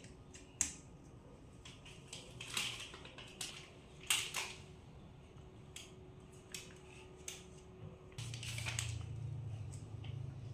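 Light clicks, taps and short rustles as sticker sheets and stickers are handled and pressed onto cabinet doors. A low steady hum comes in about eight seconds in.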